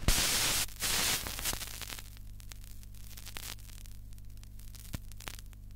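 Steady low electrical hum with static hiss. Two loud bursts of rushing noise come in the first second or so, then quieter hiss with a few faint clicks.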